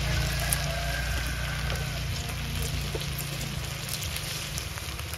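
Food sizzling in a hot pan: a steady frying hiss with faint scattered crackles, over a low steady hum.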